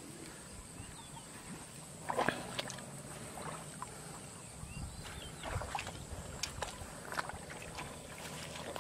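Splashing in shallow water and mud as someone wades through a flooded rice field, stepping and jabbing a hooked stick into the water. A few separate splashes stand out: about two seconds in, again around five and a half seconds, and near seven seconds.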